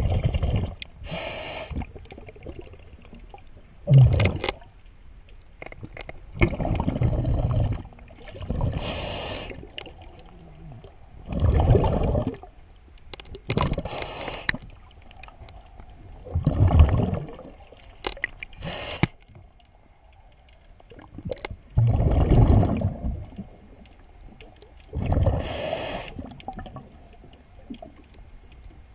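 Scuba diver breathing through a regulator underwater: a hiss of each inhalation alternates with a louder low rumble of exhaled bubbles, about five breaths in all.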